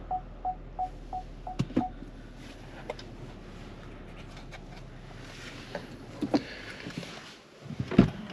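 Kia ProCeed's electronic warning beeps in the cabin: about six short beeps in one tone, roughly three a second, stopping about two seconds in. They are followed by a few sharp clicks, and a couple of knocks come near the end.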